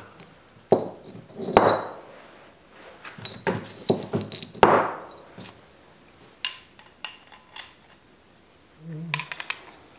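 Steel rocker arms from a Chevy 216 cylinder head clinking and clacking as they are handled, slid together and set down on the workbench for reassembly on the rocker shaft. Sharp metallic clinks come one after another with a little ringing, the loudest in the first five seconds and a few more near the end.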